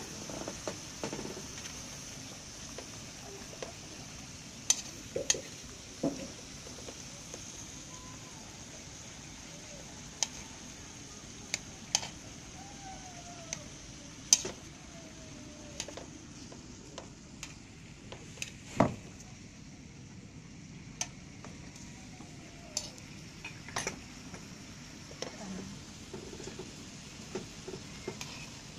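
Beef and vegetables sizzling in oil in a metal wok: a steady hiss broken by scattered sharp pops and clicks, a few of them loud.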